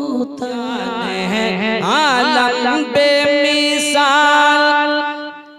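A man's voice singing a naat (Urdu devotional poem) through a PA microphone: a winding melismatic run on a drawn-out syllable, then one long held note that fades away near the end.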